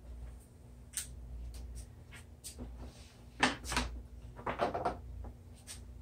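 Light knocks and scrapes of a wooden board being handled and set against a wooden table: a faint knock about a second in, two sharper knocks just past halfway, then a short run of clicks and scraping, over a steady low hum.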